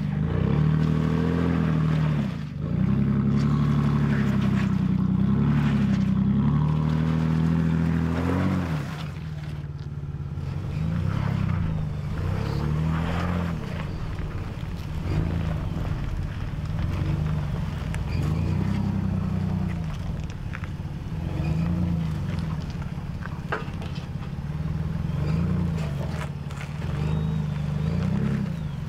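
Ford Bronco engine revving up and down as it crawls over rocks, its pitch swelling and falling every few seconds. It is loudest for the first eight seconds or so, then settles lower between blips of throttle.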